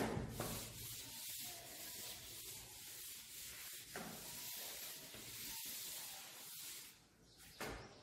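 Chalk being wiped off a green chalkboard with a board duster: a light knock at the start, then a soft, steady rubbing hiss that swells with each stroke and stops about seven seconds in.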